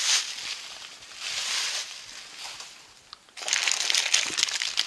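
Bubble wrap and cardboard packaging rustling and crinkling as items are handled in a shipping box, in short bursts that become busiest from about three and a half seconds in.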